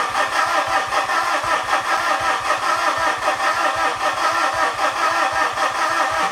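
2013 Mitsubishi Fuso FG's 4P10 four-cylinder turbodiesel cranking on its starter with an even rhythmic pulse, never catching, then winding down as the starter is released near the end. It is a no-start: the high-pressure pump builds no rail pressure beyond the electric lift pump's roughly 72 PSI.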